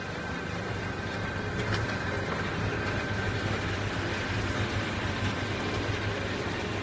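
Duct flange roll-forming machine running, with a steady motor hum and a thin high whine as sheet metal feeds through its forming rollers. There is a faint click about a second and a half in.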